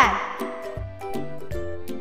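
Background music with a steady beat: held tones over a low note that repeats about every three-quarters of a second, with light ticks.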